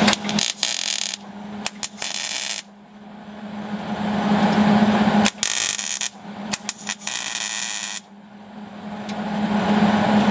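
Wire-feed welder arc crackling and buzzing on steel in two runs of about two and a half seconds each, each broken by brief stops of the trigger. A steady low hum fills the pauses between runs.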